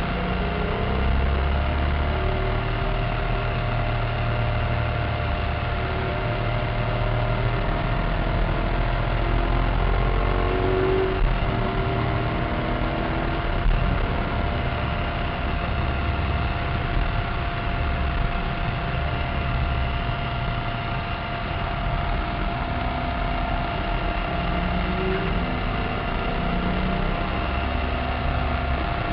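Maserati Cambiocorsa's V8 engine running hard at speed, heard from inside the cabin along with road and wind noise; its pitch shifts up and down in steps every few seconds.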